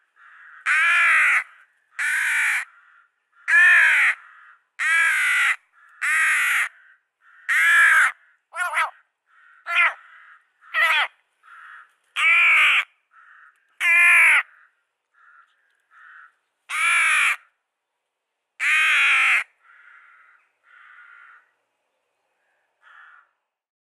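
Rook fledgling begging for food: about a dozen loud, harsh caws, one every second or two, with softer short calls in between. The calls fade to a few faint ones near the end.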